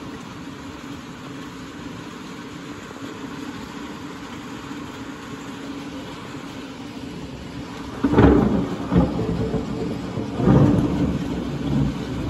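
Steady hiss of rain, then about eight seconds in a sudden clap of thunder that rolls on as a rumble, swelling again several times.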